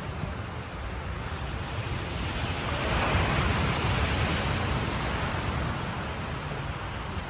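Pacific Ocean surf washing steadily, swelling to a louder breaking wave about three seconds in and then easing off.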